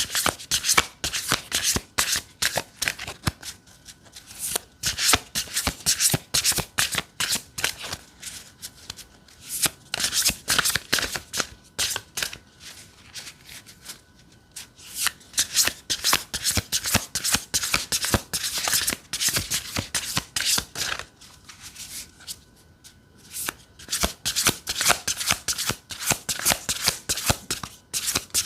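A deck of tarot cards being shuffled by hand: rapid crisp card clicks and slides in runs of several seconds, broken by brief pauses.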